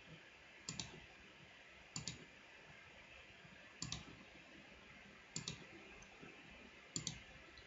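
Computer mouse button double-clicked five times, once every second and a half or so, as folders are opened one after another in a file dialog. Each double-click is a pair of sharp, faint clicks.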